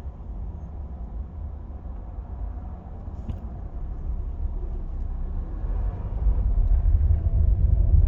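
Cabin sound of a 2022 Volkswagen Polo 1.4 turbo with a seven-speed DSG gearbox pulling away: a low engine and road rumble that grows louder over the last two seconds. This is the first-to-second shift, where the owner hears an unpleasant grinding noise that, he says, sounds like a slipping clutch.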